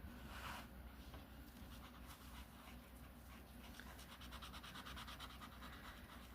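Faint, rapid back-and-forth strokes of colouring on a paper page, strongest over the last couple of seconds.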